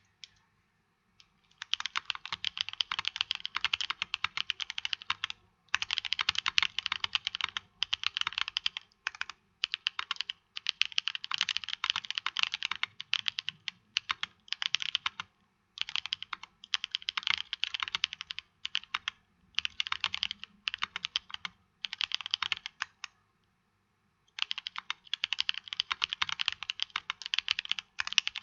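Typing on a J-02 Limited Edition custom mechanical keyboard with a carbon fiber plate, full isolation mount, lubed Holy Panda tactile switches and GMK keycaps. The keystrokes come in fast runs with short pauses between them, starting about a second and a half in.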